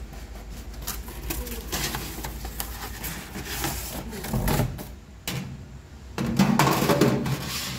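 Cardboard packaging being handled, and a thin metal crumb tray being slid into the bottom of an Oster countertop oven: a run of small clicks and scrapes, with louder handling about halfway through and again near the end.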